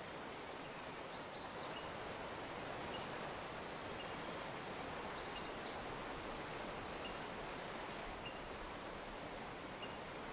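Steady outdoor background hiss, with a faint short high chirp about every second or so.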